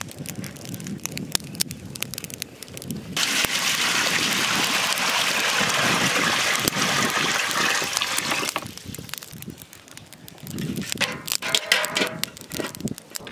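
Water pouring in a steady stream into a large aluminium pot for about five seconds. Near the end, a metal steamer plate knocks and rings as it is set down inside the pot.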